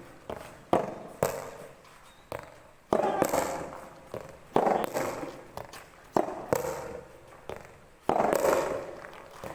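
A series of sharp hits, about ten in all at uneven spacing, each trailing off over roughly half a second: rubber soft tennis balls struck by rackets.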